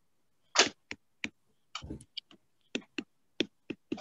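Stylus strokes on a pen tablet as letters are written: a string of about a dozen short, irregular clicks and scratches.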